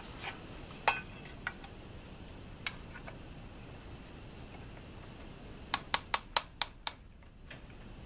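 Metal clinks and taps as a cast cover is worked onto its dowel pins over the gears of an Atlas 7B shaper: a sharp click about a second in, a few light ticks, then a quick run of about seven sharp taps near the end.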